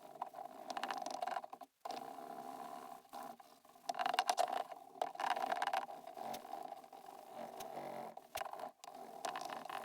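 A wipe rubbing on a plastic headlight lens, played fast-forwarded, in choppy stretches of scrubbing noise broken by sudden cuts.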